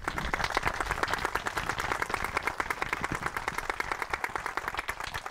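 A group of people applauding: dense, steady hand clapping that thins out near the end.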